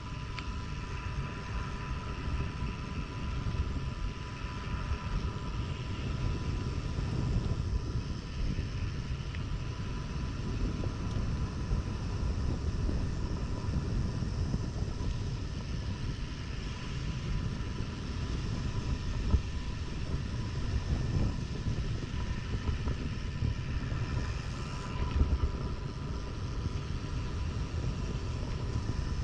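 Mountain bike riding a trail: wind buffets the action camera's microphone and the tyres rumble over the ground, with a faint steady whine above it and a few louder knocks.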